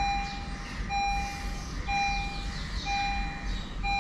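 An electronic warning beeper sounding one steady tone, nearly a second long, that repeats about once a second, over a low steady rumble.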